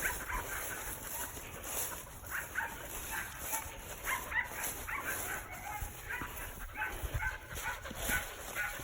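Dog barking and yipping in many short, faint calls.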